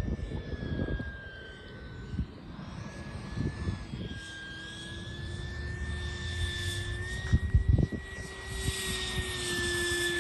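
70 mm electric ducted fan of a radio-control model jet, a steady high whine that sags a little and then climbs again as the model flies and comes in to land. There is low gusty rumbling in the first couple of seconds and a couple of short thumps about seven seconds in.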